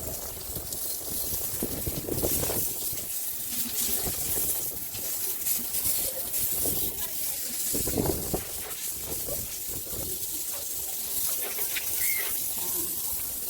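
Gusty wind blowing outdoors, a steady hiss with low buffeting on the microphone that rises and falls: strong wind from an approaching hurricane's outer band.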